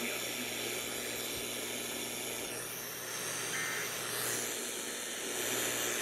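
Steady radio static hiss from a receiver with no programme audio, with a faint, short two-tone beep a little past the middle.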